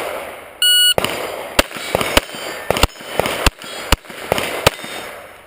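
Shot timer beeps once, then a quick series of about ten pistol shots fired at steel plates in a Steel Challenge string.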